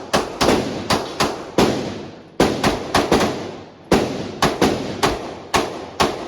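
Rapid gunfire at a shooting range: about fifteen sharp shots in quick, uneven strings of two to four a second, each with a short echoing tail.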